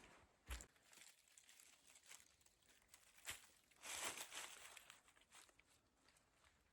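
Faint, irregular footsteps and crunching rustles on a forest trail, with a sharper knock about half a second in and a longer rustling crunch about four seconds in.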